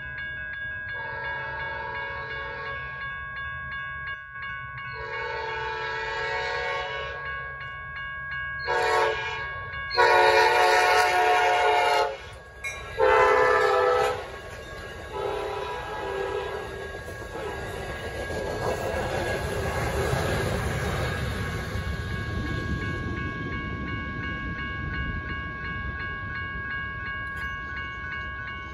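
Railroad crossing bell ringing steadily while an Amtrak passenger train's horn sounds the grade-crossing signal: two long blasts, a short one and a long one, followed by two more blasts. The train then passes through the crossing with a rising and falling rumble of wheels on the rails.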